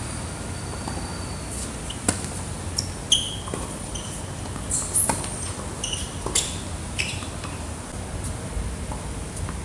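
Tennis ball being hit and bouncing during a rally on an outdoor hard court: a few sharp knocks, the loudest about three seconds in. Short high squeaks of shoes on the court come between them.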